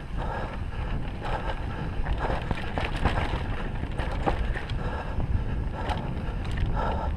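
Mountain bike riding fast down rocky dirt singletrack: wind buffeting the microphone, tyres rolling and crunching over dirt and rock, and frequent sharp clicks and rattles from the bike as it hits the bumps.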